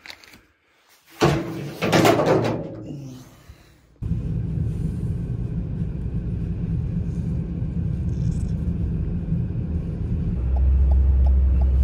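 A loud burst of noise lasting about two seconds, then a car's steady road and engine noise heard from inside the moving car, growing louder and deeper near the end, with faint regular ticking.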